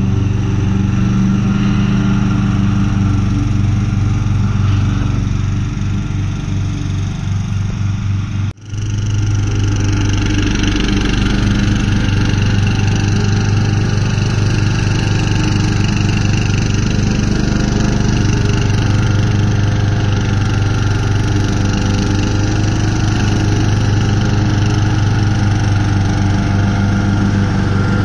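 Castelgarden XT 190 HD ride-on lawn tractor running steadily while mowing, its engine a constant even drone. The sound drops out sharply for a moment about eight seconds in, then the engine carries on.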